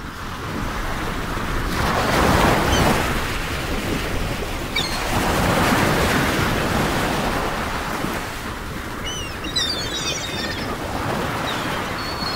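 Wind buffeting the microphone over choppy open water, with waves lapping; the noise swells in gusts about two and six seconds in.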